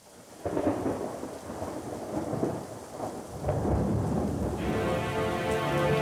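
Thunderstorm sounds opening a music track: heavy rain with rolling thunder, swelling up sharply about half a second in. About four and a half seconds in, sustained musical chords come in over the rain.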